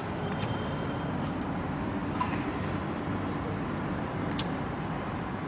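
A few faint light clicks of metal engine parts being handled, from fitting the timing chain onto its sprockets, over a steady even background noise.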